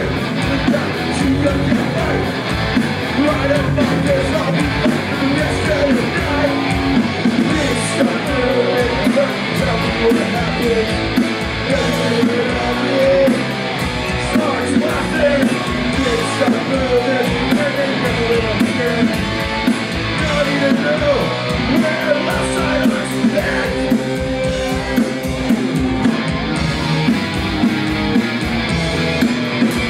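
Punk rock band playing live: electric guitars, bass and drums at full volume, with a singer.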